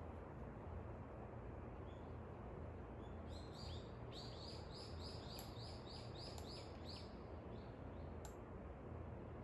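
A songbird singing a quick run of about a dozen short, repeated chirps, roughly three a second, starting a few seconds in and stopping near the end, over a steady background hiss of dawn ambience.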